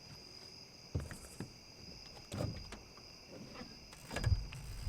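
A steady, high-pitched chorus of night insects, broken by a few dull knocks and thumps about one, two and a half, and four seconds in, the last the loudest.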